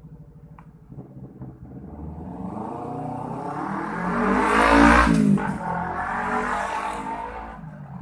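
A motor vehicle passing by: its engine grows louder, is loudest about five seconds in, then fades away.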